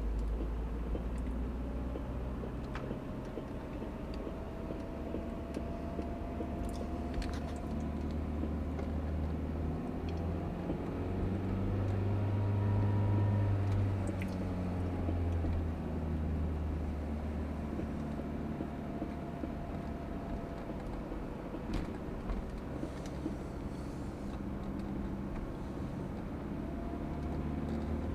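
Car running with a steady low engine and road hum that rises and then falls in pitch midway, with a few separate clunks scattered through it, a noise the owner suspects may be a worn CV joint.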